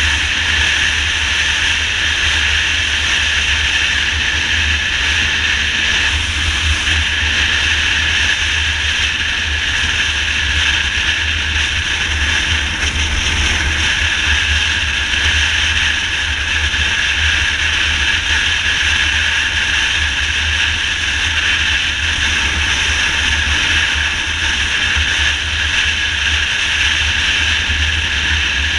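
Steady wind rush over the microphone of a motorcycle cruising at highway speed, with engine and road noise underneath.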